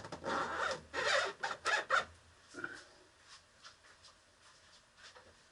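Short scraping and rubbing sounds of a steering column being worked down onto the steering box. They are followed by a brief squeak and a few faint clicks.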